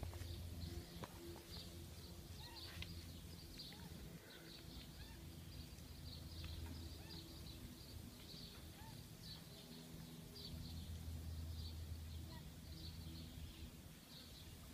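Magpie making chick-like cheeping calls: many short, high chirps repeated over and over.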